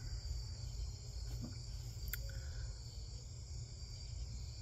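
Steady high-pitched chorus of crickets at night over a constant low rumble, with one faint click about two seconds in.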